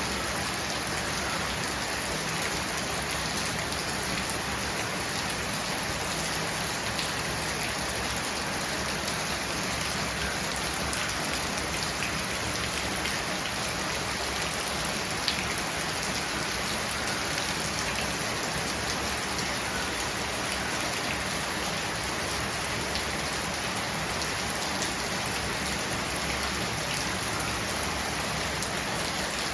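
Steady heavy monsoon rain falling and pattering on surfaces, with a few separate drop hits standing out, one a little louder about halfway through.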